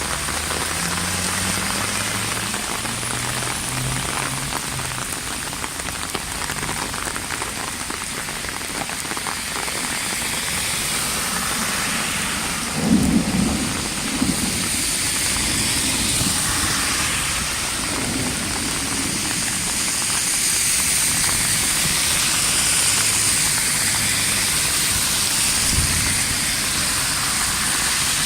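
Heavy rain hissing steadily, with a burst of thunder about halfway through and a smaller thump near the end.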